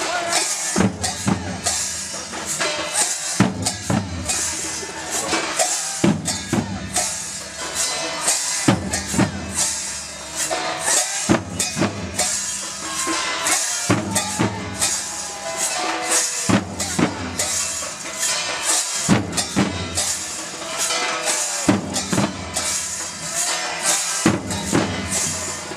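Matua danka kirtan: large double-headed danka drums beaten in a steady, driving rhythm under the constant clash of hand-held steel bowl cymbals.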